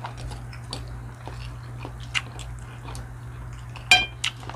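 People chewing food close to the microphone, with soft mouth sounds and small scattered clicks over a steady low hum. One sharper click sounds near the end.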